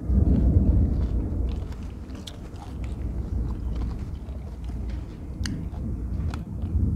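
A person chewing mouthfuls of dưa lê (Korean melon), heard close up through a clip-on microphone. The chewing is loudest just after the first bite, eases off, and picks up again near the end, with scattered small clicks.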